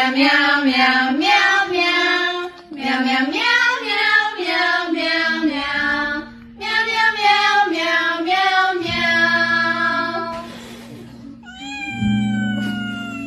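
A song sung in cat meows over a backing of sustained low notes, in short phrases of about two to three seconds. Near the end there is one long, drawn-out meow.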